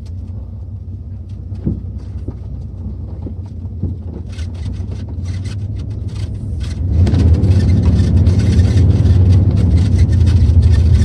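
Pickup truck running and driving, heard from inside the cab, with a steady low rumble and scattered light rattles and clicks. About seven seconds in, the engine and road noise get suddenly louder as the truck speeds up.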